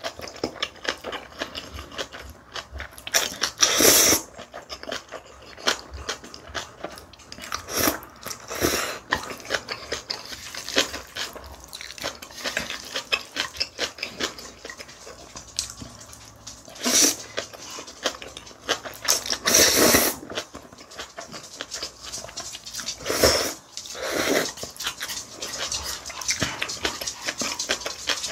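Close-up eating sounds of spicy mixed noodles: several loud, sudden slurps of noodles, with wet chewing and smacking mouth sounds between them.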